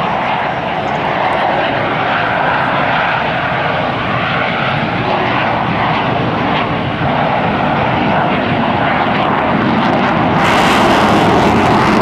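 Two F/A-18C Hornet jets, each with twin General Electric F404 turbofan engines, flying past in formation: a loud, steady jet roar. It grows louder and deeper in the last few seconds, and a harsher hiss joins it about ten seconds in.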